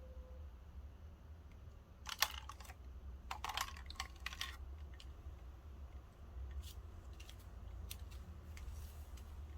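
Quick light clicks in two short bursts, about two seconds in and again from about three to four and a half seconds, then a few scattered single clicks, over a low steady hum.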